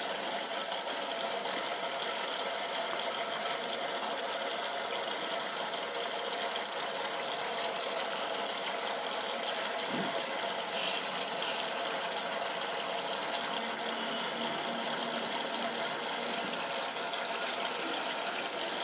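Coconut milk bubbling steadily in a non-stick pan on low heat, at the stage where it has thickened and the coconut oil is separating out.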